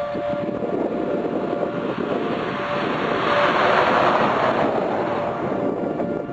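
Wind rushing over the microphone, growing louder about halfway through, with the steady tone of a distant tornado warning siren rising and fading beneath it.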